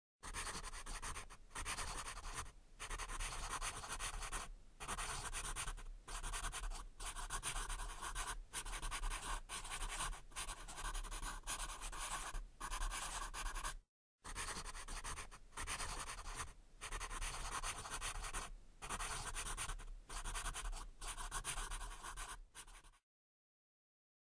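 Pen-on-paper writing sound effect: scratchy strokes in runs of one to two seconds with short breaks, over a steady low hum. It stops suddenly about a second before the end.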